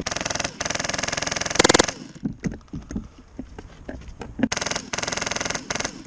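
HPA-powered airsoft light machine gun (Polarstar Fusion Engine MK46) firing fast full-auto bursts: a long burst of nearly two seconds at the start, then another of about a second near the end, with scattered single pops between.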